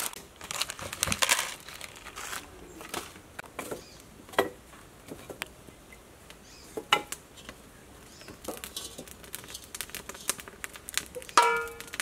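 Brief crinkling at the start, then scattered light knocks and clicks. Near the end a steel pot clanks against the wok on a clay stove and rings with a short metallic tone.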